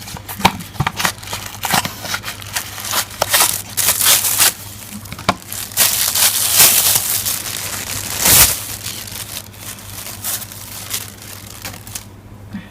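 A charging cable's retail box and packaging being opened by hand: irregular crinkling, rustling and tearing with small clicks, busiest in the middle with a loud burst about eight seconds in, thinning out near the end.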